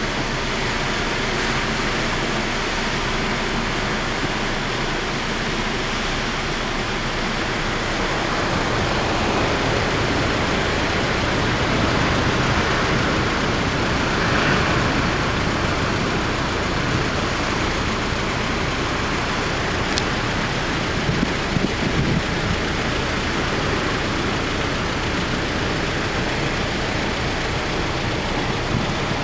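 Typhoon wind and heavy surf on the coast: a steady rush of noise that swells a little around the middle, with gusts buffeting the microphone.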